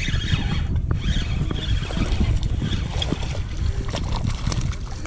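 Spinning reel being cranked to reel in a hooked bass, with light scattered ticking, over a steady rumble of wind on the microphone and water against the boat.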